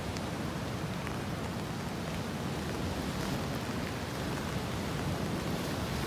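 Steady rushing noise of sea waves breaking on a rocky shoreline.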